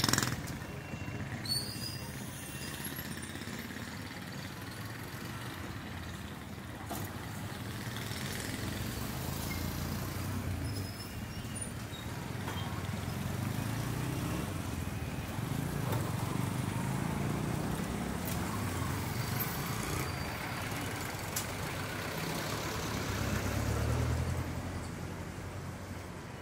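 Street traffic: road vehicle engines running and passing, their rumble swelling and fading several times over a steady background hum.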